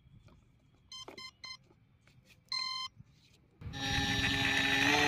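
Brushless motor ESC beeping as the battery is connected: three short beeps about a second in, then one longer beep, the arming tones of the 30 A ESC. About three and a half seconds in, the 2200KV brushless motor starts running with its 6045 pusher propeller, a steady buzzing hum that grows louder.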